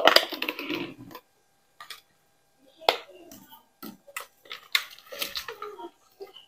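Kitchen clatter as containers and utensils are handled: a dense rattling burst that dies away about a second in, then scattered clicks and knocks.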